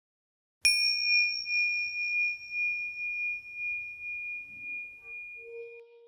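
A small bell struck once about half a second in, ringing a single clear high tone that fades with a slow pulsing before being cut off near the end. Near the end a low held note of soft music fades in beneath it.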